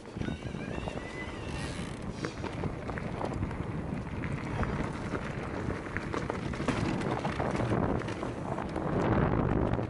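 Wind buffeting the microphone and tyres rolling over a rough dirt trail as an electric mountain bike descends, with the bike rattling and knocking over roots and stones. A brief high squeal sounds in the first two seconds. The rush grows louder near the end as speed picks up.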